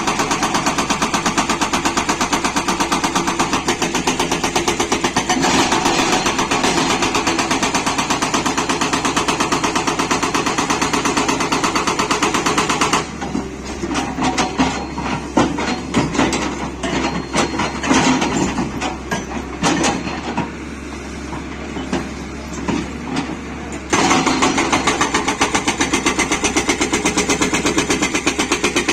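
Tata Hitachi 200 excavator's hydraulic rock breaker hammering stone in a fast, steady rattle of blows, stopping for about ten seconds in the middle, when only scattered clanks and the engine are heard, then hammering again. The stone is so hard that the breaker makes no headway on it.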